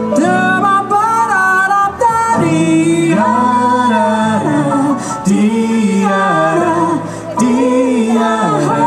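A live band playing a jazzy pop song: a woman singing long held notes with vibrato over keyboard, electric guitar and bass guitar.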